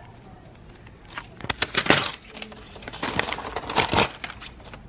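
Paper notebooks being handled and thrown away: dense rustling and crackling of paper pages, in two loud spells starting about a second in.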